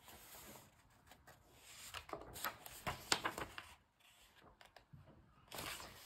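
Faint rustling of paper as a hand slides over a paperback picture book and turns a page, with a few soft crinkles in the middle and a longer rustle near the end.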